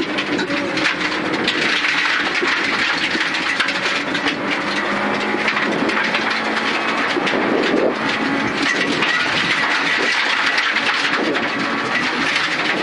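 Suzuki Ignis Sport rally car's four-cylinder engine running hard under load, heard from inside the stripped cabin. Its pitch climbs and drops back several times with the gear changes. A dense rattle of gravel pelts the underbody and wheel arches.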